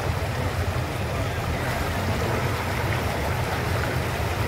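Swollen, fast-flowing river in flood after heavy rain, its water rushing steadily with a deep low rumble.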